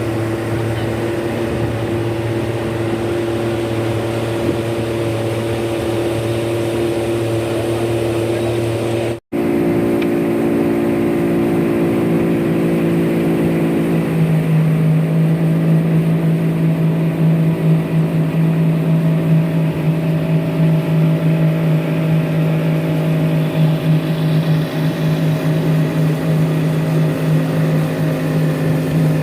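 Small boat's outboard motor running steadily under way, with a brief cut about nine seconds in and a change in engine pitch a few seconds later.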